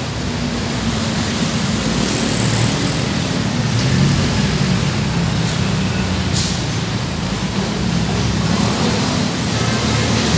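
Road traffic: cars, a pickup and motorcycles passing close by on a multi-lane city road, a steady rumble of engines and tyres.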